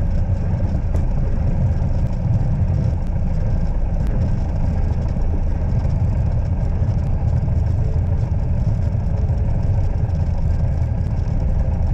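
Light aircraft's piston engine and propeller droning steadily, heard inside the cockpit, with most of the sound low down and no change in pitch.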